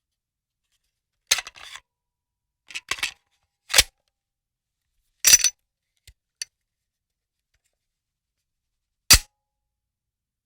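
Gun reload sound effects: a series of sharp metallic clicks and clacks of a firearm's action being worked, in several short groups separated by silence, ending with one loud single clack.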